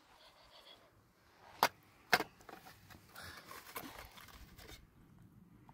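Two sharp clinks, about half a second apart, of a metal cup and tea glasses knocking on a metal serving tray, followed by a soft hiss lasting a second or so.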